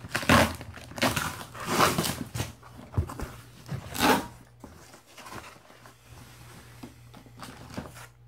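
Cardboard box being opened by hand: flaps scraping and packing paper rustling and crinkling, with several loud rustles in the first four seconds, then quieter handling and small clicks.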